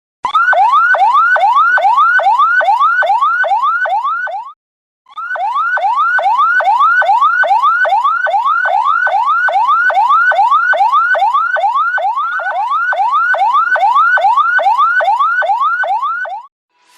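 Ambulance siren sounding a fast yelp: quick rising whoops, about three a second, that break off briefly about four and a half seconds in, then carry on and stop just before the end.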